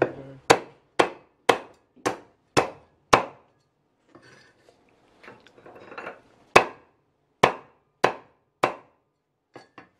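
Cleaver chopping through braised duck necks on a wooden chopping board: seven evenly spaced chops, about two a second, then a short pause and four more chops.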